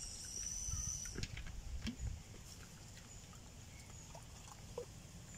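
Hiss of carbonation escaping as the cap of a plastic Coca-Cola bottle is twisted open, lasting about a second, followed by quieter sounds of cola being poured into a glass.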